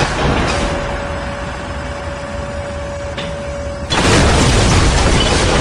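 Junkyard crane and car-crushing sound effect: a dense mechanical rumble with a steady hum over it. About four seconds in, a louder, sustained crunching noise sets in as the cars are crushed.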